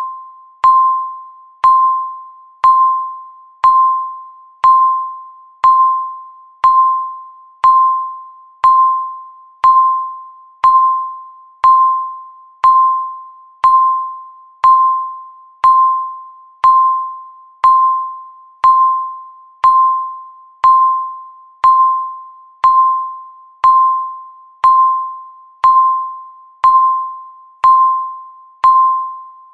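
Countdown timer beep sounding once every second, each a single clear electronic tone that strikes sharply and fades before the next.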